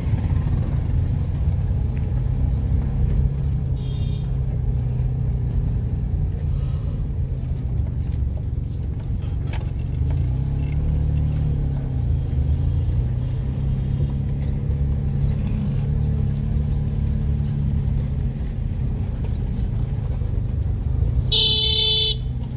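Low, steady engine rumble of street traffic such as motorcycles and auto-rickshaws, with a short, loud vehicle horn blast about a second before the end.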